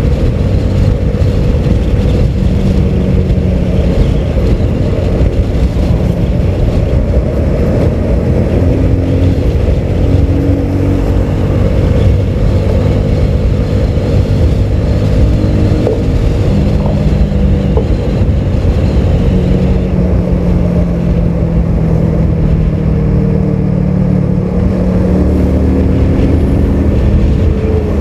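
Motorcycle engine running while riding at road speed, under a heavy, steady rumble of wind and road noise; the engine note shifts up and down a little every few seconds.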